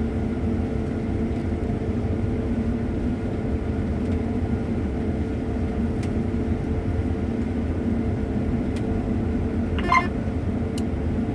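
Combine harvester running steadily while cutting soybeans, a constant engine and machinery drone. A brief high-pitched chirp sounds near the end.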